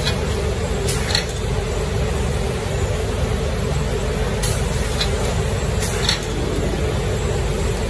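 Steady running hum of an automatic diaper-packing machine, with a few short sharp hisses and clicks every second or two as it works.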